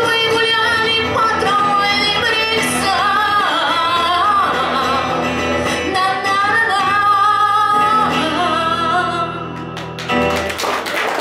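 A woman singing live to a seated player's electric guitar accompaniment. The song winds down about nine seconds in, and in the last second the audience starts clapping.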